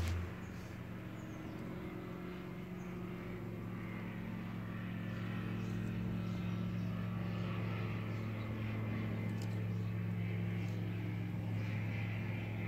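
Steady low motor hum running throughout, growing slightly louder after a few seconds, with a few faint light ticks.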